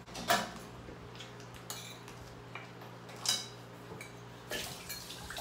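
Spoons and forks clinking and scraping on plates as people eat: a handful of separate clinks, the loudest about three seconds in. A low steady hum runs underneath.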